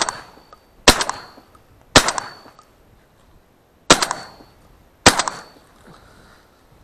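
Armsan 612 semi-automatic shotgun fired five times in quick succession, the first shot right at the start. The next two follow about a second apart each, then there is a pause of about two seconds before the last two. Each shot is a sharp crack with a short echoing tail.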